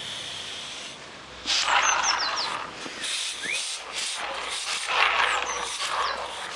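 Partly built Tich model steam locomotive chassis running on compressed air instead of steam, with air hissing out of its cylinders as it moves along the track. The hiss sets in loudly about a second and a half in and swells and dips from then on.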